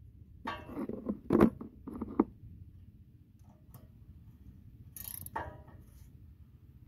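A few sharp metal clinks of a combination wrench and socket on two nuts, bunched together near the start and once more about five seconds in, as they are jammed tight against each other on a small-engine carburetor's mounting stud so the stud can be backed out.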